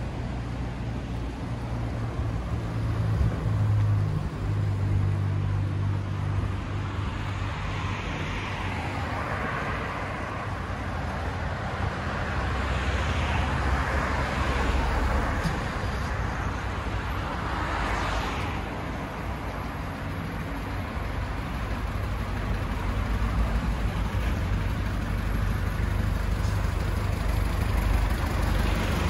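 Road traffic: several cars pass one after another over a steady low engine hum.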